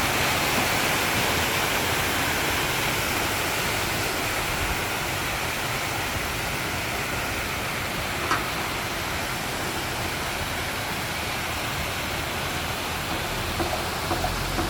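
Steady rush of running water, with a single brief click about halfway through.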